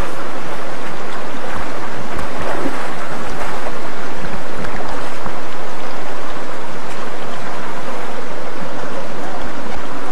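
River water rushing loudly and steadily, with scattered low thumps.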